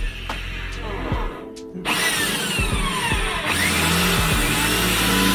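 Electric drill boring out a rivet in the car's sheet-metal body, its motor whine sliding in pitch as the bit bites and slows, and getting louder about two seconds in. Background music plays along.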